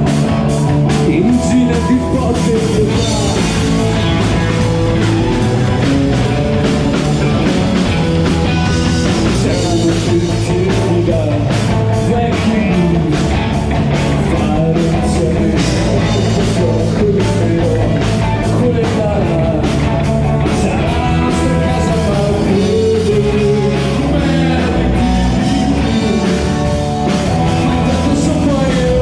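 Rock band playing live: electric guitar over a steady drum-kit beat, with a bending melodic line on top and no lyrics sung.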